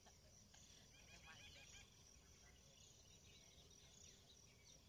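Faint birdsong: scattered chirps and calls, with a quick run of about six short notes a little over a second in, over a steady high-pitched insect trill.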